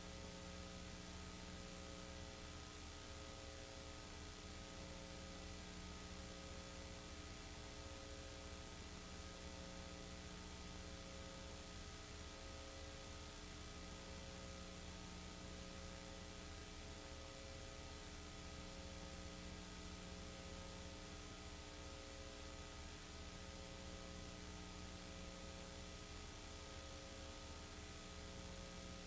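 Faint, steady electrical mains hum and hiss, with no other sound: the soundless track of a silent home-movie transfer. A faint tone within the hum pulses about once a second.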